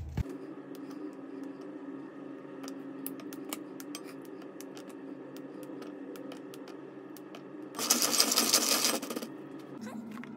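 Valrhona chocolate bars being snapped by hand into small pieces over a stainless steel bowl: scattered sharp clicks and snaps as pieces break and drop into the bowl, over a steady background hum. About eight seconds in comes a louder rustling burst lasting about a second and a half.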